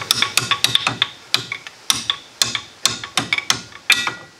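Quick, irregular metal clicks and clinks, some ringing briefly, as a torque multiplier is jiggled and worked into place so its gear teeth engage, ready for torquing a VW rear axle nut.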